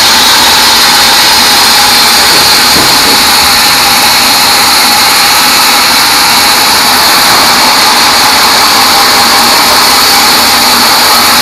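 Large sawmill band saw running steadily as small pieces of teak are fed through it, a loud, unbroken whine with hiss.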